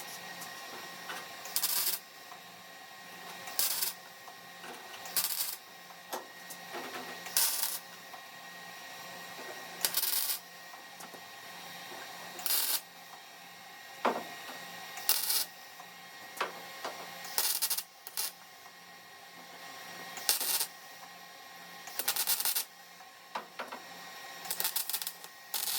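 An arc welder laying a run of short spot welds while stitch welding a car's steel quarter panel. There are about a dozen brief bursts of crackling arc, each under half a second and roughly two seconds apart, over a faint steady hum.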